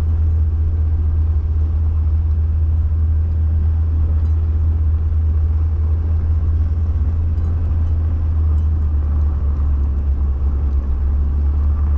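Vehicle driving along a snowy road: a steady low engine and road drone with an even rushing noise over it.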